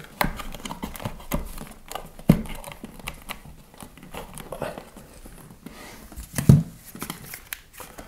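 Sheathed electrical cable being pulled and rubbing through a plastic electrical box, with rustling, scraping and scattered clicks. There are a few sharper knocks as the box is handled against the wall, the loudest about two seconds in and about six and a half seconds in.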